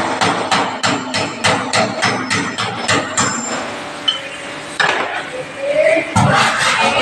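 Body hammer tapping a dented steel car panel, about three quick, even blows a second for the first few seconds, then stopping. One more knock comes near five seconds, and a burst of rough noise follows near the end.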